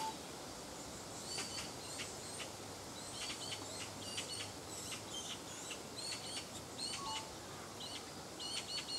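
Small birds chirping: many short, high chirps in quick runs throughout, over a steady background hiss.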